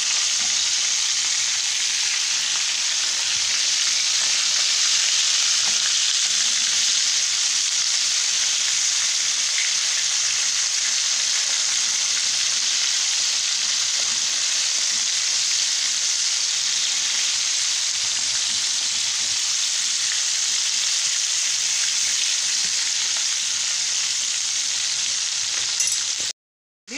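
Flour-coated stuffed sardines sizzling in hot oil in a frying pan, a steady hiss, while a fork and spoon turn them in the pan. The sound cuts out abruptly for a moment near the end.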